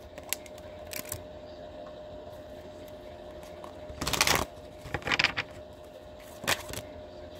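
Tarot cards handled on a table: a few short rustles and taps, the loudest a half-second rustle about four seconds in, over a faint steady hum.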